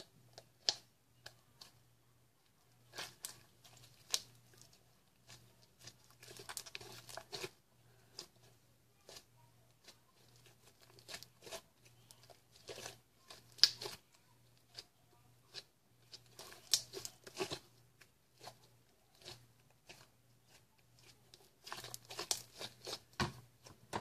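Homemade glue slime being squeezed and kneaded in the hands close to the microphone, making irregular small pops and crackles.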